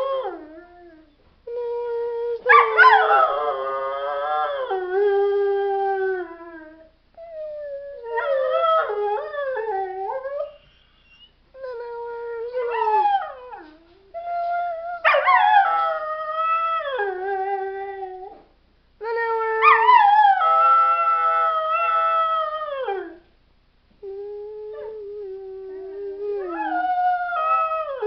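Pet dog howling in a series of about six long, wavering howls separated by short pauses. Each howl slides down in pitch as it ends.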